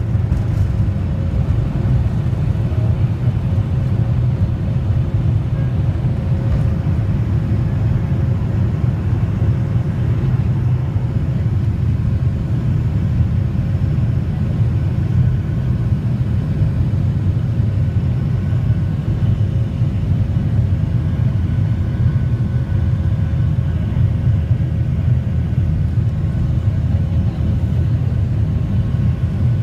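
Jet airliner cabin noise at takeoff thrust: the engines and airflow make a loud, steady low rumble through the takeoff roll, liftoff and initial climb. A faint steady hum sits over it.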